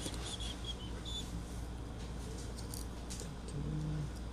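Faint clicks and taps of a phone's motherboard and small parts being pressed and handled in its frame, over a steady low hum. A few short, high chirps come in the first second or so.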